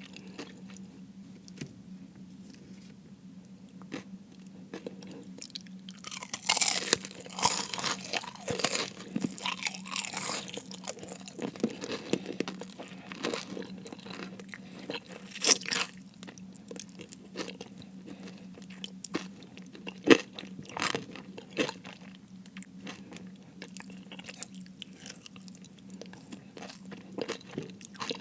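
Close-miked eating of crispy fried food: a loud crunching bite about six seconds in, then chewing with many short, crisp crunches. A faint steady low hum sits underneath.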